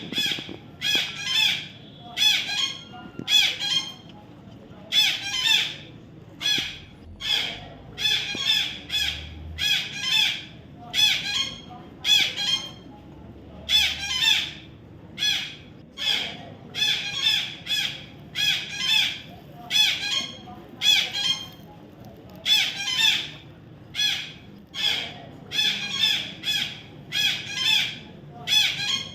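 Parrot squawking over and over in short, harsh calls, about one or two a second, with a few brief pauses between runs.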